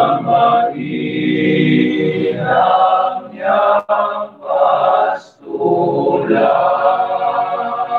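Small male choir singing a cappella, in phrases broken by a few brief pauses.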